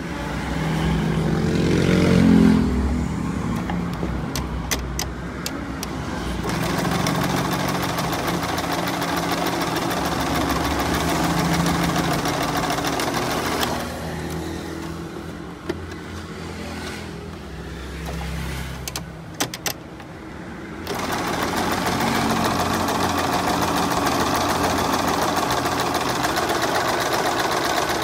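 Norio electric domestic sewing machine running and stitching fabric, with its speed and loudness changing. Through the middle it runs quieter for several seconds, with a few sharp clicks, then picks up again about two-thirds of the way through and runs steadily.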